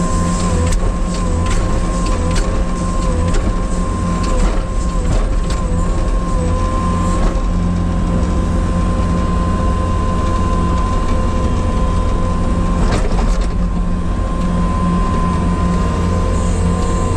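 Diesel engine of compact earthmoving equipment running steadily under work, with a steady high whine over the rumble and scattered knocks and clanks.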